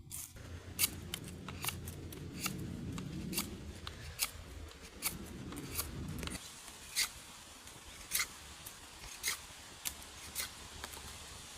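A blade cutting wood by hand: a run of sharp snipping clicks, roughly one a second, with a low rumble that stops about six seconds in.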